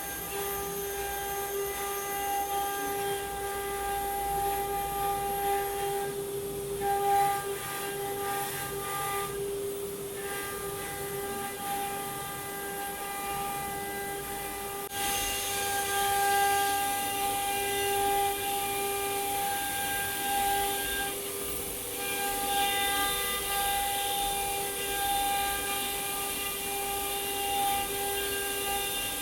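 The 9 kW HSD air-cooled spindle of a large ATC CNC wood router, running with a steady high whine that breaks off briefly now and then. About halfway through, a louder hissing rush joins it.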